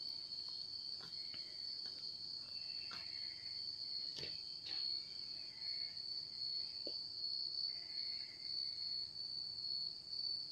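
Faint steady high-pitched tone, with a few faint clicks and knocks, one about four seconds in.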